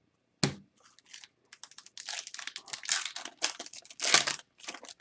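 A sharp knock on a tabletop, then a few seconds of crinkling and tearing of a foil trading-card pack wrapper as a hockey card pack is torn open, loudest near the end.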